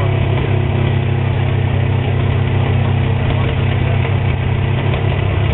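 An old wrecked car's engine idling, a steady low hum that does not change.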